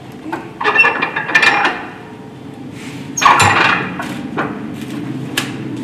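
Wooden lever tortilla press being worked by hand: irregular knocks and clatters as the lid and lever are handled and pressed down on the masa, with the plastic sheet rustling. Loud bursts come about a second in and about three seconds in, then a couple of single clicks.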